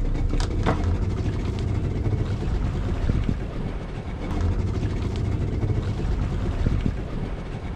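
Outrigger fishing boat's motor running with a steady low drone, with two short knocks under a second in.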